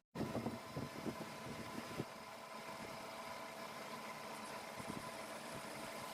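A workshop machine's motor starts up abruptly and runs steadily with a faint whine, with irregular knocks and rattles during the first two seconds.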